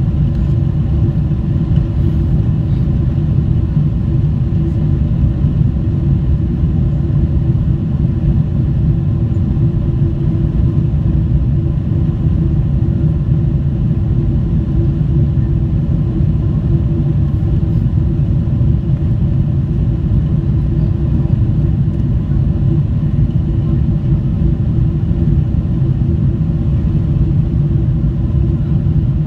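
Engine and airflow noise inside the cabin of a Boeing 777-300 climbing after takeoff: a steady low rumble with a faint hum over it.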